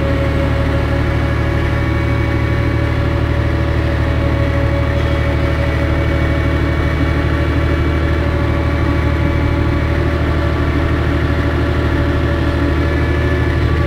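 Fiat 1180 DTH tractor's six-cylinder diesel engine running steadily under load while pushing snow, heard from inside the cab.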